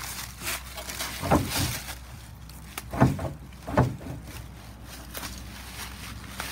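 Three dull thumps, about a second and a half, three and nearly four seconds in, over faint rustling.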